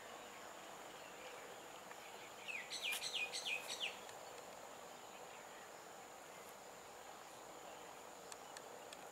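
Faint outdoor ambience with a steady high insect buzz. About two and a half seconds in, a bird gives a quick series of about six short falling chirps.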